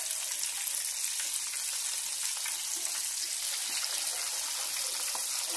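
Battered chicken pieces deep-frying in hot oil in a stainless steel skillet: a steady, crackling sizzle.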